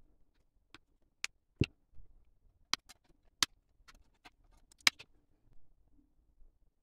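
Sharp plastic clicks and snaps from handling and fitting model kit parts, about a dozen irregular clicks, one with a dull knock about one and a half seconds in.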